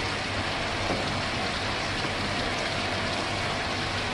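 Water pumps circulating and splashing water in live-shrimp holding tanks: a steady splashing hiss with a low, even electric hum underneath.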